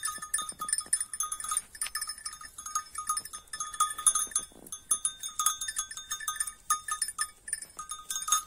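Yalova Kıvırcık sheep grazing close by: a rapid, irregular crisp crunching as they tear and chew dry grass, with a small collar bell jingling on and off as they move.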